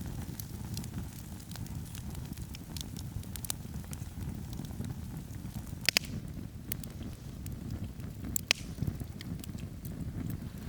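Wood campfire burning on snow: a steady low rumble of flames with scattered sharp crackles and pops of firewood. The loudest pops come about six seconds in and again about eight and a half seconds in.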